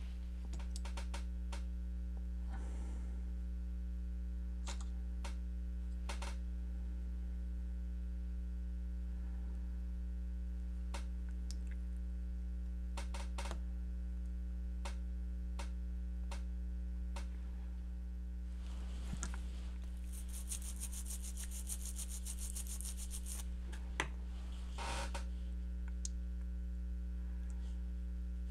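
Steady electrical mains hum, with faint scattered clicks throughout and a few seconds of high hiss about two-thirds of the way through.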